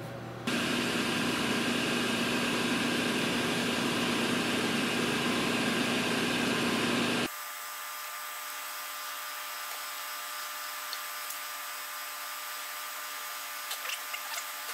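A steady running machine noise with a low hum, which cuts off abruptly about seven seconds in. A quieter steady electrical hum follows, with a few light clicks near the end as parts are handled.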